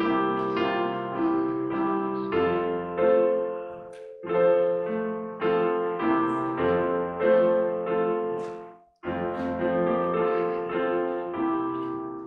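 Piano playing quiet, chordal music, with short pauses between phrases about four and nine seconds in.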